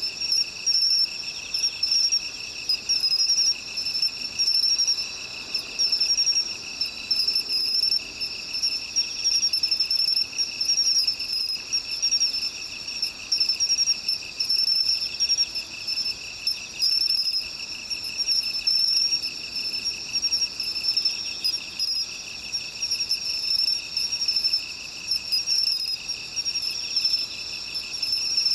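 Insects singing in grass and shrubs: several overlapping high trills, each finely pulsing, in a steady chorus.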